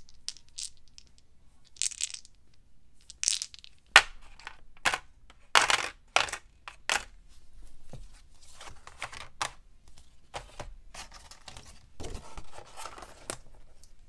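Small plastic dice clicking against each other and against a black plastic insert tray as they are set into its slots, with a run of sharp clicks in the middle. Softer rustles and taps of the plastic tray and lid being handled follow.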